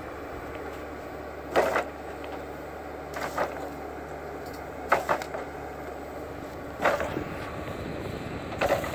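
Timberpro 840B forwarder at work, its engine running steadily under five sharp knocks and clatters that come about every one and a half to two seconds.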